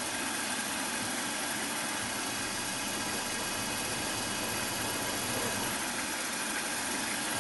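Small benchtop milling machine running at a steady speed with a centre drill in its chuck, giving an even motor hum and hiss that does not change.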